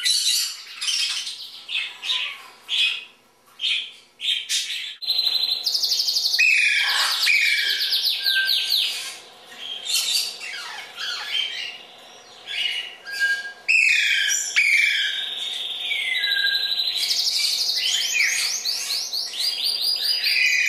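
Caged pet birds chirping and calling over one another, with rapid high trills and short whistled notes that slide downward. It is sparser for the first few seconds and busier from about five seconds in.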